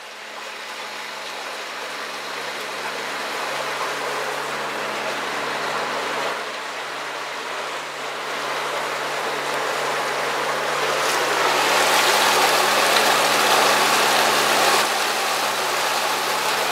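Pontoon boat's motor running steadily under way, a low even hum under the rush and splash of water along the pontoons and in the wake. The water noise builds gradually and is loudest from about eleven seconds in.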